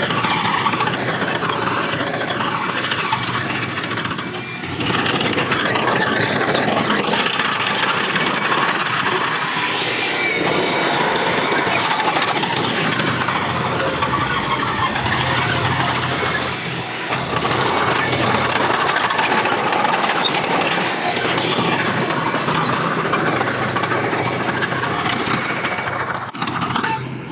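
Bulldozer working with its engine running and its crawler tracks squealing, a loud, dense mechanical noise that dips briefly about four seconds in.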